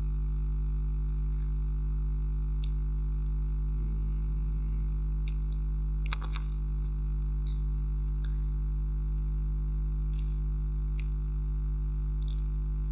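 Steady electrical hum with a buzzing edge, with a few faint clicks about a third and halfway through.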